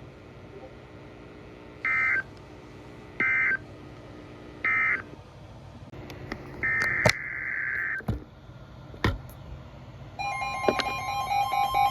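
Emergency Alert System digital data bursts: three short screeching bursts about a second and a half apart, the end-of-message code closing the flash flood warning, then a longer burst and a few clicks. Near the end a steady two-tone alert tone begins.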